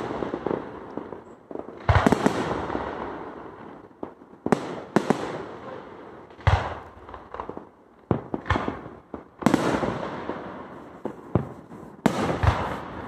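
Aerial fireworks shells bursting overhead, a sharp bang every second or two, each trailing off in a fading rumble and crackle.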